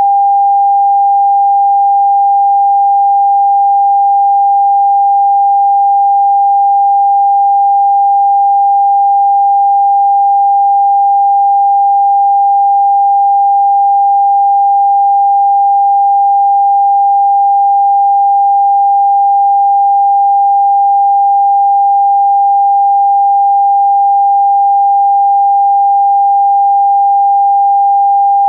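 Electronically generated sine-wave tone of a Rife frequency-therapy track: a single pure tone held at one unchanging pitch.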